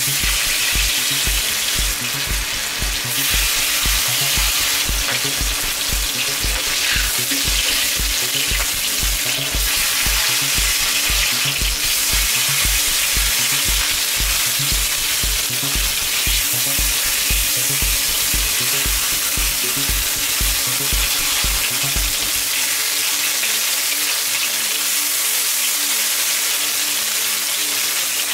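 Pork chops sizzling loudly as they fry in hot oil in a wok, with tongs laying the pieces in. Underneath, background music's steady low beat runs at about two thumps a second and stops about three-quarters of the way through.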